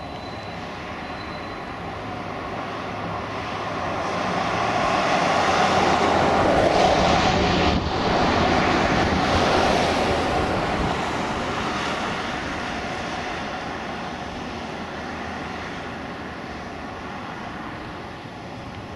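Distant twin-turboprop drone of a Piper PA-31T Cheyenne II (Pratt & Whitney PT6A engines) on approach, heard as a broad rushing sound mixed with wind. It swells to its loudest in the middle and then fades again.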